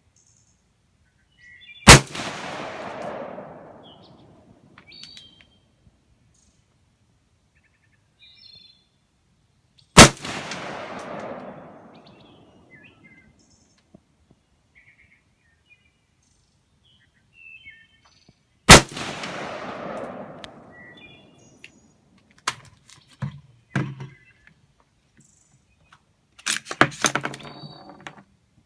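Three shots from an AR-15 rifle in .223 firing 55-grain steel-case rounds, about eight seconds apart, each followed by an echo that dies away over about two seconds. Birds chirp between the shots, and a run of sharp clicks and clatter follows near the end.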